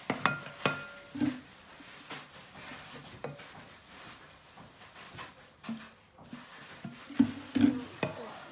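Metal spoon stirring thick slime in a ceramic bowl, knocking and clinking against the bowl's sides in quick runs of clicks. There is a quieter stretch in the middle, and the loudest knocks come near the end.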